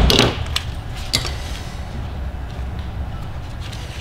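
A few sharp plastic clicks and a brief rustle of a wiring harness connector and its wires being handled in gloved hands, over a steady low hum; the rustle comes right at the start and the clicks follow within about a second.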